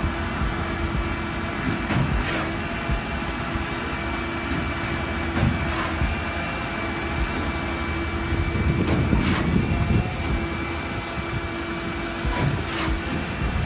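Concrete pump trucks' diesel engines running steadily: a low rumble with a constant hum and a thin high whine, broken by a few short knocks.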